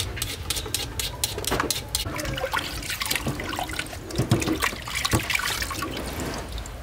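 Water splashing and trickling, with frequent short sharp clicks and knocks throughout.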